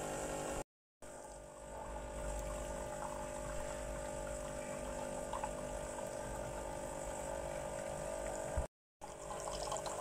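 Ariston MCA16 built-in coffee machine in its rinse cycle after descaling: the water pump hums steadily while rinse water pours from the spout into a cup. The sound drops out briefly twice, about a second in and near the end.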